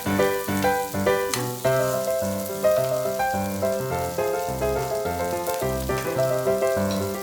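Instrumental background music of sustained, changing notes over a bass line, with pork belly sizzling on a grill underneath.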